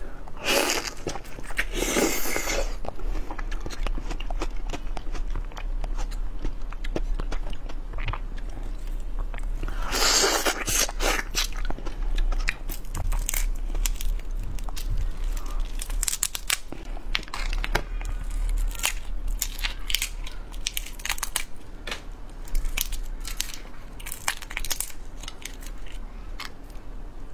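Close-up shrimp eating: the shell of a large red shrimp cracked, torn and peeled by hand, with crunching bites. A run of short snaps and crackles, with longer tearing rustles about half a second, two seconds and ten seconds in.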